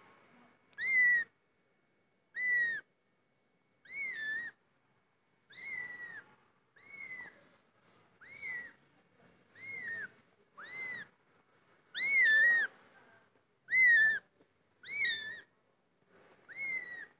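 Kitten meowing over and over: about a dozen short, high-pitched mews, one every second or so, each rising and then falling in pitch. The longest and loudest comes a little past the middle.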